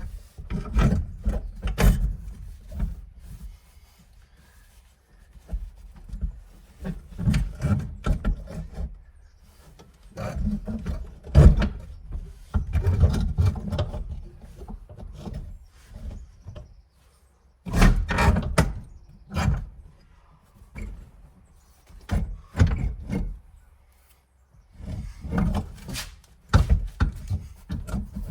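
Irregular clunks, thuds and sliding scrapes of hands-on work on a car bucket seat and its metal seat tracks, in loud clusters with short quiet gaps between.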